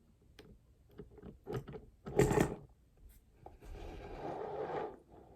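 Plastic action-figure parts clicking and rattling as they are handled and fitted together. There are scattered light clicks, a louder clatter about two seconds in, and a soft scraping rustle near the end.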